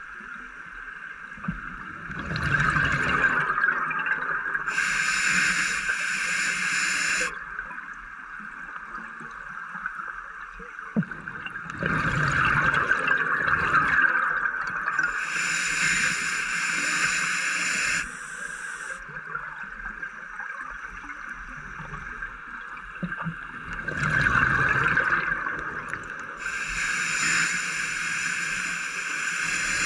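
Scuba diver breathing through a regulator underwater: three breaths about eleven seconds apart, each a gurgling burst of exhaled bubbles followed by the hiss of the inhale.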